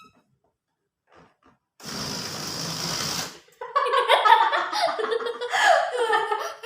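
An inflated giant balloon let go: air hisses out for about a second and a half, then the neck squeals loudly with a wavering, jumping pitch as it flies.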